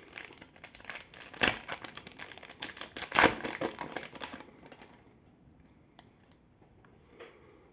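Foil wrapper of a trading-card pack being torn open by hand and crinkled, with two sharp rips about one and a half and three seconds in. It dies away after about four and a half seconds.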